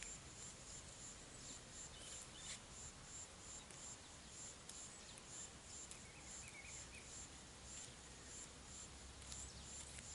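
Quiet outdoor ambience: a faint, high-pitched insect chirp repeating steadily about twice a second, with a few faint bird chirps and small rustles.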